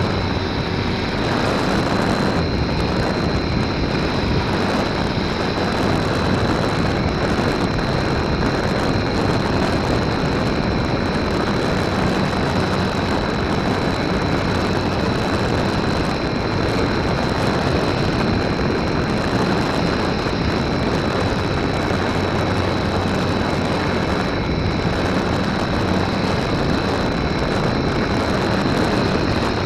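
Onboard sound of a GWS Slow Stick electric park-flyer in flight: steady rushing of wind and airflow over the camera's microphone mixed with the motor and propeller running, with a thin steady high whine on top.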